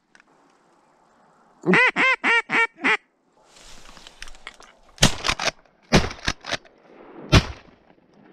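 A fast series of five loud duck quacks, then three shotgun blasts fired at flying ducks, the first two about a second apart and the third about a second and a half later, with a few smaller clicks among them. The 3.5-inch BB loads bring down one widgeon.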